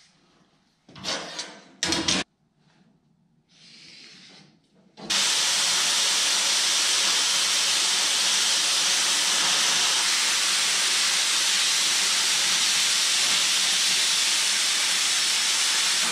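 Plasma cutter cutting steel diamond plate: a loud, steady hiss that starts about five seconds in and holds even. Before it come a couple of short clunks from handling the plate and straightedge, and a brief softer hiss.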